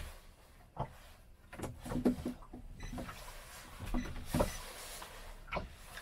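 Irregular knocks and creaks of a small boat and its rod holders rocking on choppy water, with a wash of water noise about four seconds in.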